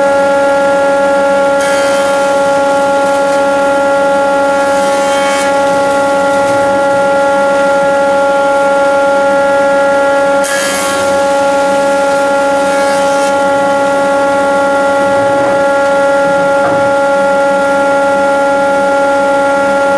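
Woodworking surface planer running at full speed with a steady, high-pitched whine. A few short hissing rushes, around 2, 5, 11 and 13 seconds in, are the board's edge being passed over the spinning cutter block.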